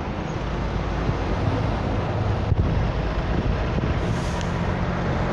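Car engine and road noise heard from inside the cabin while driving, a steady low hum under even rushing noise, with one faint click about halfway through.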